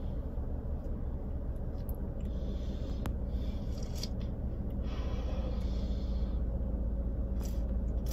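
Steady low hum of a car cabin, with a few soft slurping sips from a drink can and a single small click about three seconds in.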